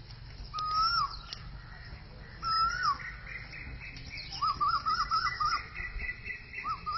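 Birds singing: two short whistled phrases in the first three seconds, then a fast run of rising chirps, about five a second, from about four seconds in, starting up again near the end.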